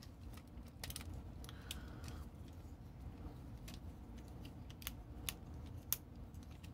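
Faint, scattered clicks and taps of a plastic Transformers Animated Sunstorm action figure's parts and joints as it is handled and transformed, with a couple of sharper clicks near the end.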